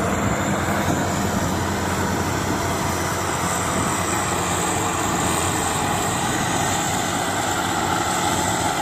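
FMWorld Star WS 8.0 tracked combine harvester running steadily under load as it cuts and threshes standing rice. Its engine and machinery make a constant drone.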